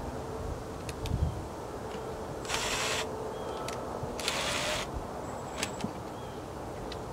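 Cordless drill/driver run in two short bursts, each about half a second and a little over a second apart, driving screws that fasten a security camera's mounting base to wood siding.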